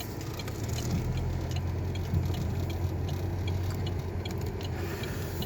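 Car driving, its engine and road noise heard inside the cabin as a steady low rumble, with a few faint light ticks.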